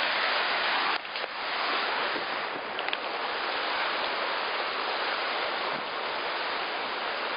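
Steady rush of a waterfall, with a brief dip in level about a second in.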